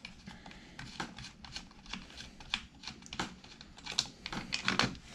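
Small irregular clicks and taps of hands unscrewing the side cover nut of an Echo CS-2511T chainsaw and working the plastic side cover off. The clicks come more thickly toward the end.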